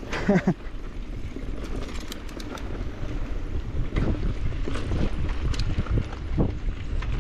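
Wind rumbling on the microphone over the rattle, clicks and tyre noise of an Evil Insurgent full-suspension mountain bike riding down a rocky trail.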